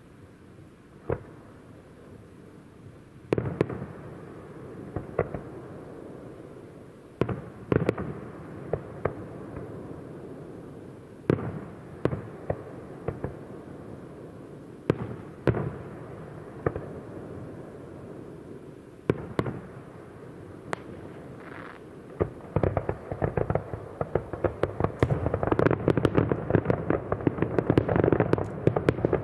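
Aerial fireworks shells bursting in the distance: single sharp bangs a few seconds apart, then from about two-thirds of the way through a rapid barrage of bangs that builds louder toward the end.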